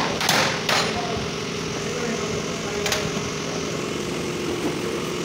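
Motorcycle service-workshop din: a steady mechanical hum with engine-like tones, broken by three brief hissing bursts, two in the first second and one about three seconds in.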